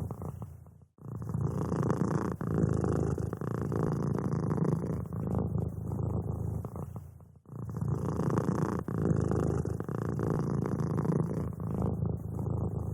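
Domestic cat purring in long, rough, buzzing stretches, each broken by a short gap about every six seconds as the cat's breathing turns over.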